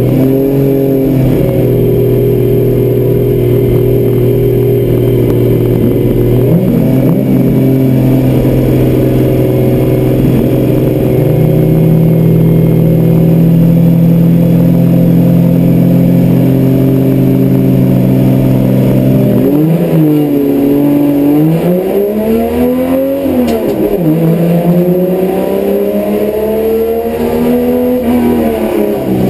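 Holden HQ race car's straight-six engine heard from inside the stripped cabin, held at high, steady revs for about two-thirds of the time. Then the revs drop and climb sharply several times, as the gears change through a corner.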